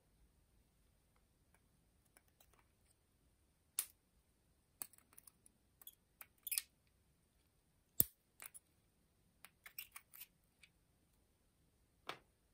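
Small metal parts of a Makita DF001G drill-driver's gear housing being pried and handled with a pick: scattered light clicks and short scrapes, the sharpest click about eight seconds in.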